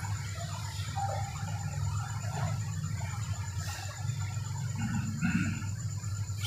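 Quiet room tone: a steady low hum under a thin, constant high-pitched whine, with faint scattered rustles and a soft brief sound a little after five seconds.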